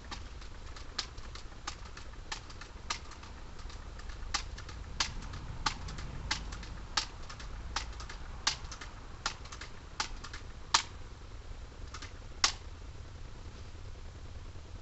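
An irregular series of sharp clicks, roughly one or two a second, over a low steady background rumble.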